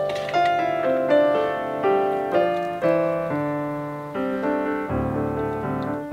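Background piano music: a slow, gentle melody of single notes and chords, a new one struck about every half second, each ringing and fading.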